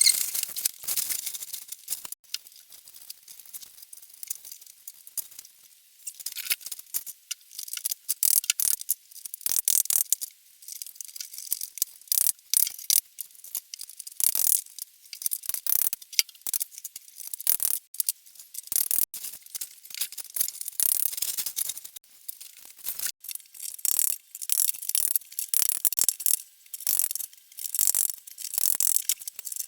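Hard plastic interlocking floor tiles clattering and clicking as they are handled and snapped together: a continual run of irregular, sharp, high-pitched clicks and rattles.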